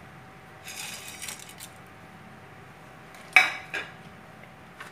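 Whole spices (cinnamon sticks, bay leaves, cardamom, cloves) dropped onto raw beef in an aluminium pot with a soft rustle, then a sharp metallic clink against the pot about three and a half seconds in, followed by a lighter one.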